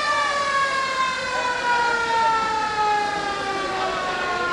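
A siren sounding one long, unbroken tone whose pitch falls slowly and steadily.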